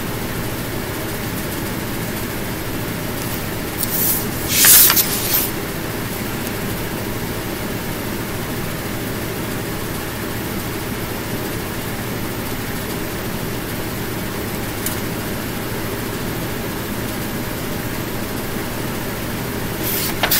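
Steady background hum and hiss, with no speech. A short, louder burst of hiss comes about four seconds in.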